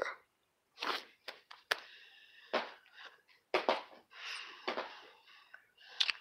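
Soft breathing with scattered short clicks and rustles close to a phone microphone, with brief gaps of near silence.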